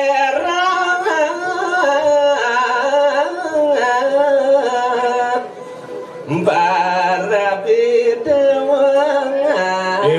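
A solo voice singing a long, wavering, ornamented melodic line in two phrases, with a short break about five and a half seconds in, in the manner of Balinese sung verse.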